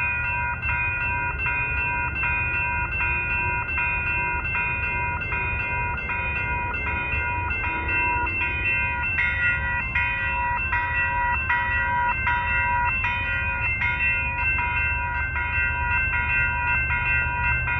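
Railroad grade-crossing warning bell ringing in an even, repeating rhythm, about one strike every three-quarters of a second, with a steady low rumble underneath.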